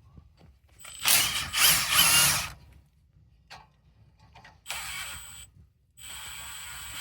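Impact wrench running in three bursts, spinning out a brake caliper bolt; the first burst is the longest and loudest and wavers in pitch.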